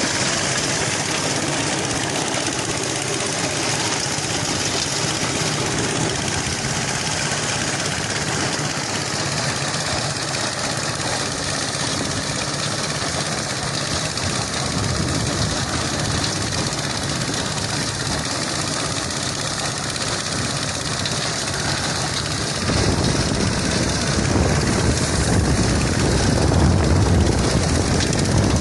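An engine running steadily; about two-thirds of the way in, a deeper, louder rumble sets in suddenly.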